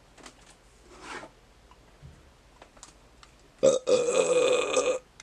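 A person's loud, drawn-out burp starting about three and a half seconds in and lasting over a second, after a few faint clicks.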